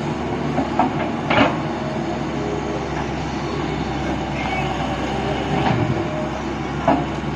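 Tata Hitachi tracked excavator's diesel engine running steadily under load as the bucket digs into wet mud, with a couple of short knocks from the working gear.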